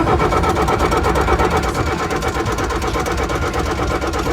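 Bobcat compact track loader's diesel engine being cranked by the starter without catching, a fast even rhythm that stops abruptly: the no-start still under diagnosis after a leaking fuel line was replaced.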